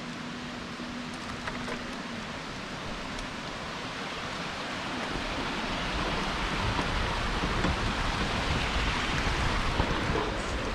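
Steady rushing noise of wind on a handlebar-mounted camera and bicycle tyres rolling on the path, growing louder about halfway through. A faint steady hum sits under it for the first couple of seconds.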